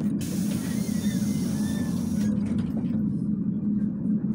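Bogdan T701.10 trolleybus running with a steady low hum. A hiss lasting about two seconds starts just after the beginning.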